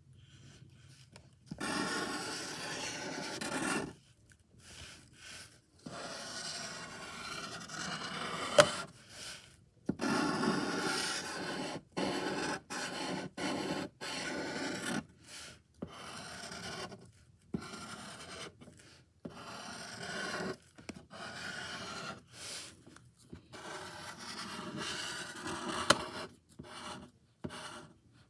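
A drawing or colouring tool rubbing back and forth on paper in uneven stretches of scratchy strokes with short pauses, with a couple of sharp ticks.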